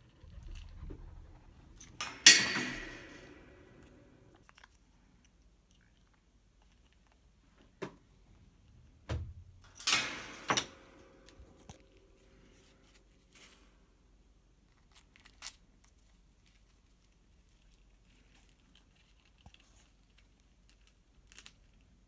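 White cockatoo handling a wooden and straw toy with its beak: crunching and rustling with scattered small clicks, and loud sudden clatters, one about two seconds in and a cluster around ten seconds.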